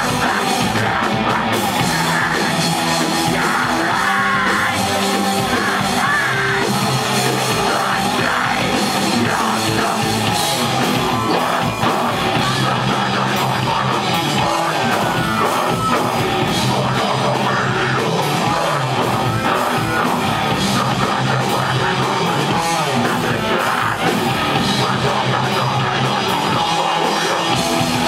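Live metalcore band playing at a steady, loud level: distorted electric guitars, bass and drum kit, with yelled vocals over them.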